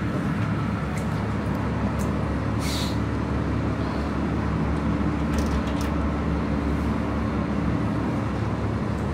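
A passenger ferry's engine running steadily, a low drone heard from the open deck, with a few light clicks and a brief hiss about three seconds in.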